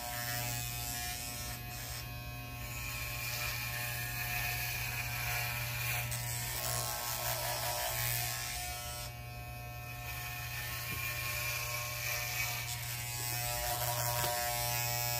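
Electric hair clippers buzzing steadily as they are run over short, tightly curled hair.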